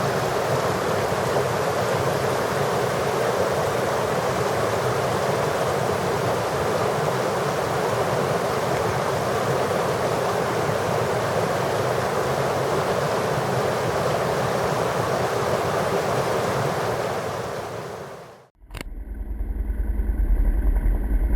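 Steady rush of a flowing stream. It fades out and cuts off about 18 seconds in, and a low engine rumble with wind buffeting the microphone follows.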